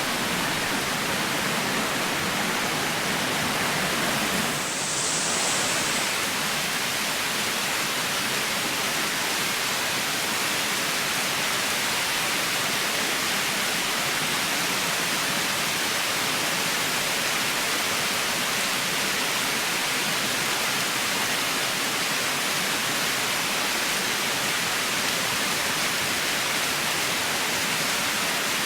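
Waterfall crashing onto rock: a loud, steady rush of falling water heard close to the base of the falls.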